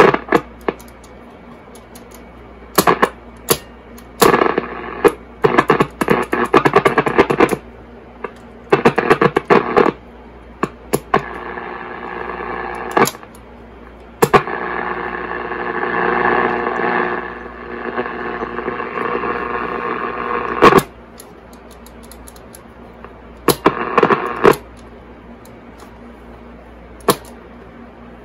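Zenith Trans-Oceanic H500 tube radio being tuned across the band: sharp crackles and clicks with bursts of static and muffled snatches of station audio that fade in and out, over a steady low hum.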